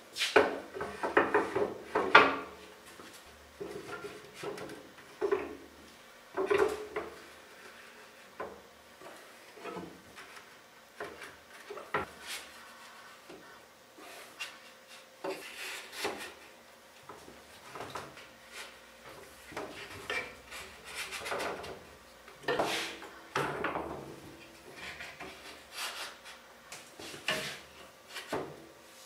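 Poplar stretcher-bar pieces handled and fitted together on a wooden workbench: irregular wooden knocks and clacks with sliding, scraping wood-on-wood rubs between them, the loudest knocks near the start.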